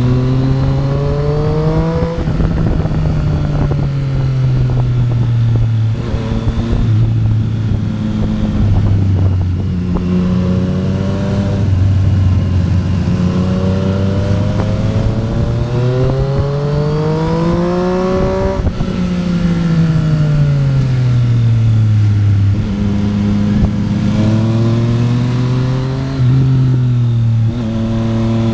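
Triumph Street Triple RS three-cylinder motorcycle engine under way, accelerating and slowing repeatedly. Its pitch climbs, drops sharply at each gear change, and slides down again under engine braking, with the longest climb about two thirds of the way in.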